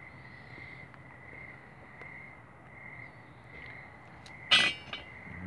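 Night insects chirping in a steady, softly pulsing high trill, with one short, loud, sharp sound about four and a half seconds in.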